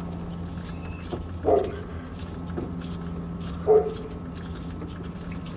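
Short yelp-like animal sounds, two clear ones about two seconds apart with a fainter one between, over a steady low hum.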